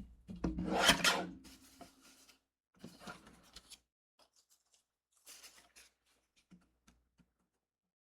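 Paper trimmer blade sliding through a strip of patterned paper: one long cut near the start, followed by a few fainter rustles of the paper being handled.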